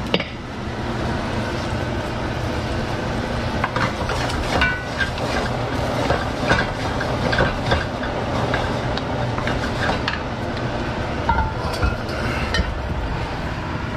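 Kitchen cooking noise: a steady hum and hiss, with scattered light clinks and knocks of a spoon and cookware against a pot and wok.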